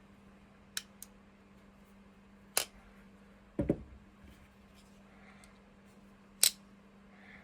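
Handling noise from folding knives: a few sharp clicks and one duller knock as the knives are picked up and set down.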